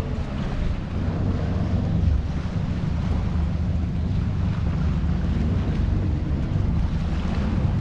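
RNLI lifeboat's diesel engines running at the mooring, a steady low hum, with wind buffeting the microphone.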